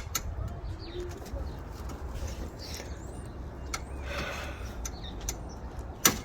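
Birds chirping, with scattered sharp clicks and taps from hand work on the car's plastic clips and fasteners; a single sharp click near the end is the loudest sound.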